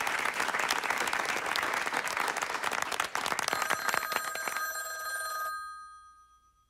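Audience applauding, dying away over a couple of seconds. About three and a half seconds in, a telephone starts ringing with one long ring that stops near the end.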